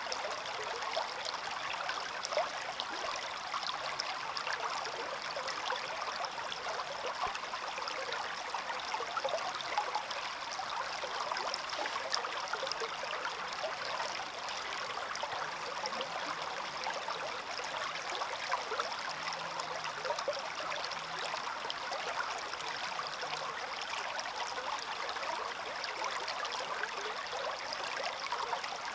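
Stream water running steadily, a continuous babble of trickling and splashing.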